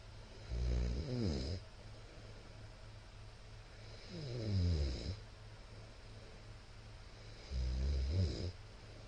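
A middle-aged man snoring loudly: three snores about three and a half seconds apart, each lasting about a second, with a pitch that slides down as it goes. A steady low hum runs underneath.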